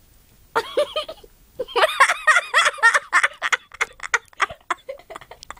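Domestic cat making a rapid run of short chirping, chattering calls, each rising and falling in pitch, that break up into quick clicks in the second half.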